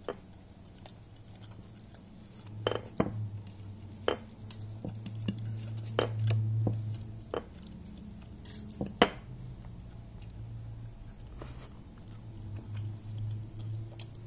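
A serrated knife and fork clinking and scraping against a ceramic plate while cutting chicken, with about a dozen sharp clinks, the loudest about nine seconds in, and chewing in between.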